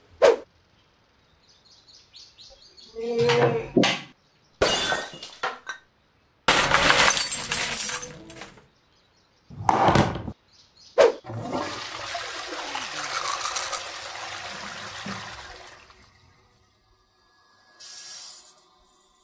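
Glass shattering in a loud crash about seven seconds in, after a few shorter knocks. Several seconds of rushing water follow.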